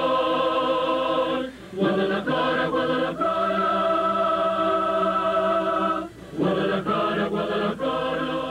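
Mariachi music: long held chords in phrases of a few seconds, with two short breaks between phrases.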